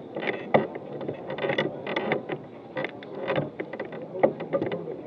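Crowd walking in a street procession: irregular scuffs and clacks of many footsteps over a low murmur of voices.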